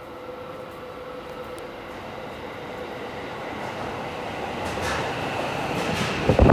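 Subway train pulling into an underground station, its rumble growing steadily louder as it comes in. From about two-thirds of the way through a high steady whine rises above the rumble, and near the end a sudden low thump comes as the train sweeps past along the platform.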